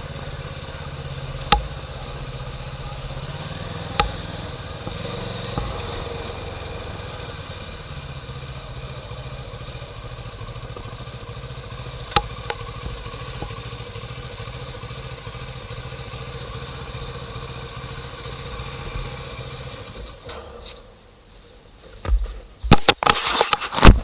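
An engine running steadily with a low hum and a few sharp clicks; it stops about twenty seconds in. Loud knocks and rattles follow near the end.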